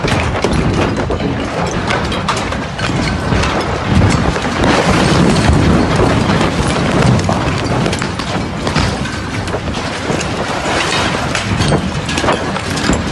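Loud continuous rumbling with many sharp knocks and clatters through it, the roar and debris noise of a huge explosion's aftermath.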